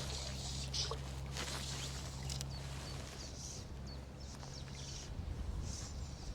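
Riverside ambience: a steady low rush of wind and running water, with small birds chirping now and then.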